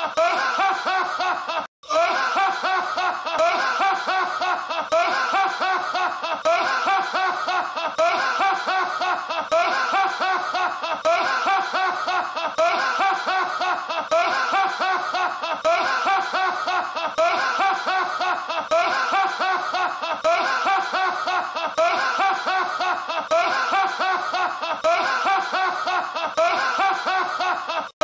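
A man's hearty laugh, looped without pause as an unbroken run of repeated bursts of laughter. There is one brief break to silence about two seconds in, where the loop restarts.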